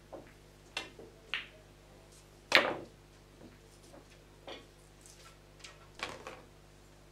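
Pool balls clacking: a cue striking the cue ball and balls knocking together, heard as a handful of separate sharp knocks. The loudest comes about two and a half seconds in and rings briefly.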